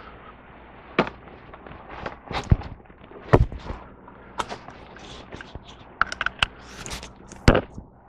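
Scattered sharp knocks and clanks of steel and a clamp being handled on a welded steel sawmill bunk, about a dozen separate hits at uneven spacing.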